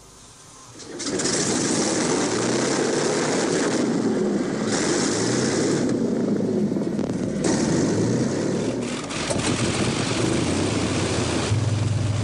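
Piston aero engines of a WWII four-engined bomber starting up and running, with propeller noise: the sound comes in loud about a second in and then runs steadily, with a deeper drone growing stronger near the end.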